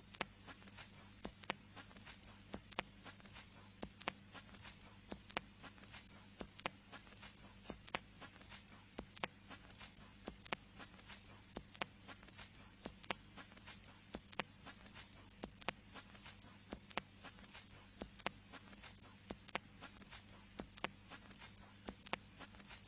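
Vinyl record surface noise from an unmodulated groove between tracks: a steady patter of clicks and pops over faint hiss, with a low steady mains hum underneath.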